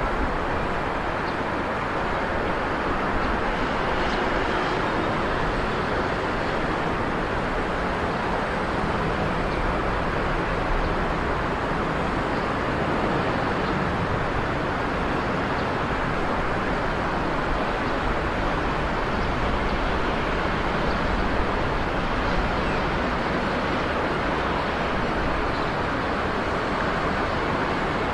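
Steady outdoor background rush, an even constant noise with no distinct events, of the kind made by distant road traffic.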